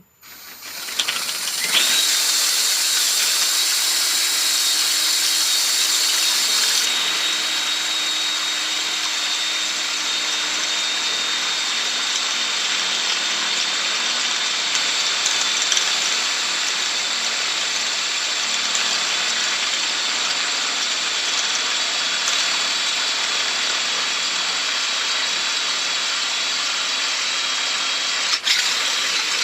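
Power drill running steadily with a step drill bit, reaming out the inside of a bicycle handlebar end, with a steady high whine from the bit cutting the metal. It spins up in the first second or two and runs without stopping.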